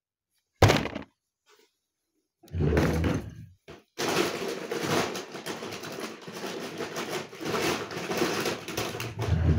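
Plastic packaging rustling and crinkling as it is handled, with a short bump about half a second in and a longer stretch of steady rustling through the second half.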